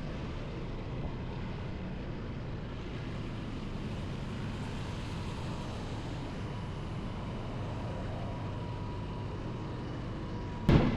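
Motorcycle riding along, a steady mix of engine and road noise, with a faint steady high tone in the second half. A single sharp knock near the end is the loudest sound.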